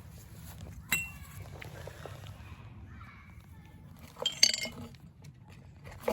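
Loose metal pieces of a broken-apart rear shock absorber clinking as they are handled: a sharp click about a second in, a louder cluster of clinks around four and a half seconds, and another clink near the end.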